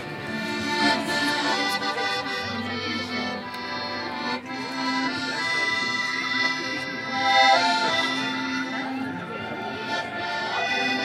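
Live folk band playing an instrumental tune, with the accordion leading over fiddle and strummed acoustic guitars.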